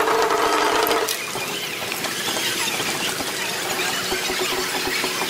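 Outdoor parade sound played back at four times speed: crowd voices and passing cars turned into high, squeaky chatter. A steady hum cuts off about a second in.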